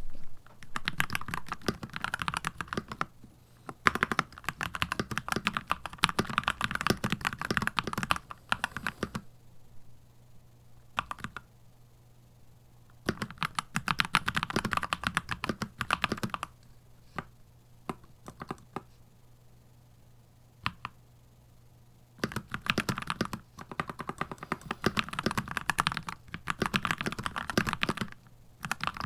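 Keychron C2 Pro 8K mechanical keyboard being typed on in fast runs of keystrokes, with two lulls of a few scattered single keypresses: one about a third of the way in and one a little past the middle.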